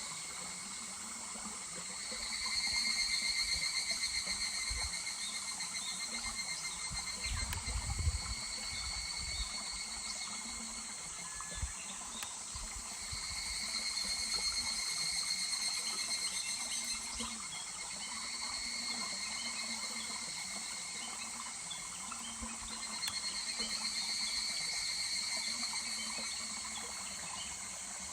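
Higurashi (evening cicadas) calling in three bouts of rapid high pulsed song, each swelling and fading away, over the steady rush of a small stream. A brief low rumble comes about eight seconds in.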